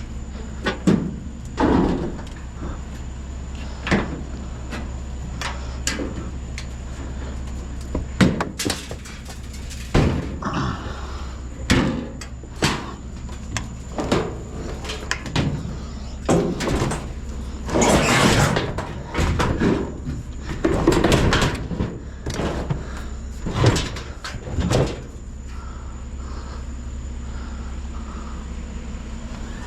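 Scrap metal being handled and dropped: irregular knocks, bangs and clatters, a cluster of them loudest about two thirds of the way through, over a steady low hum.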